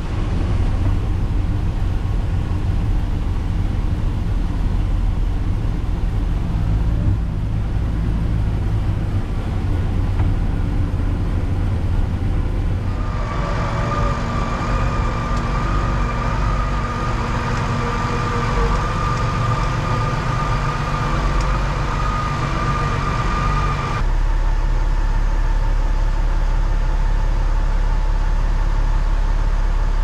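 Massey Ferguson 6290 tractor engine running, heard from inside the cab while it pulls a loaded grain trailer. About halfway through, a steady high whine joins the engine for around ten seconds and then stops abruptly, leaving a steadier, even drone.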